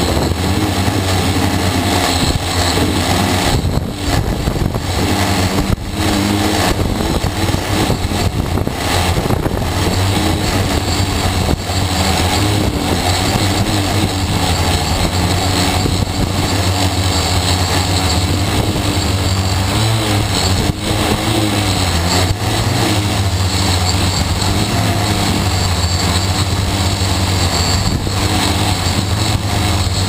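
T580 quadcopter's electric motors and propellers buzzing loudly and steadily, with small shifts in pitch as the throttle changes. Heard from a camera mounted on the airframe right beside a spinning propeller.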